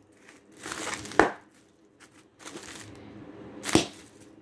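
Rustling of a present being unwrapped, with two sharp clacks, one about a second in and one near the end.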